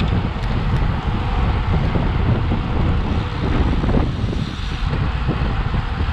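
Loud, steady wind buffeting an action camera's microphone on a road bike riding at speed in a bunch of cyclists.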